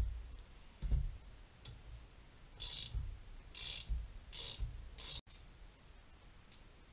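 Ratchet spanner clicking in four short strokes, under a second apart, as it winds the forcing screw of a three-jaw puller drawing the center support bearing off a driveshaft. Two dull knocks come before the strokes, and the sound cuts off abruptly about five seconds in.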